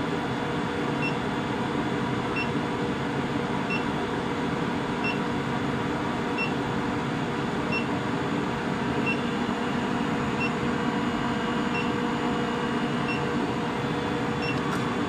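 A 25 kW induction heater running steadily with a droning hum, heating a crucible of steel rivets to red heat. A short electronic beep sounds about every second and a half.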